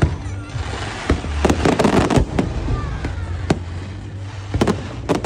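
Fireworks going off: sharp bangs and crackles, with a dense rapid run about a second and a half in and another cluster of bangs near the end.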